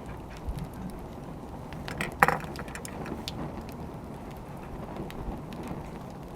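Wood fire crackling: a steady low rumble with scattered small pops, and one loud sharp crack a little over two seconds in.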